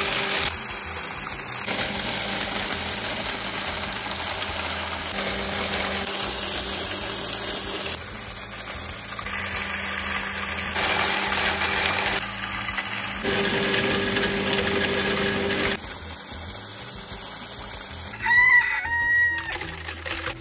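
Electric grain mill running, grinding dried corn kernels into cracked corn: a steady grinding noise over a low motor hum. A rooster crows near the end.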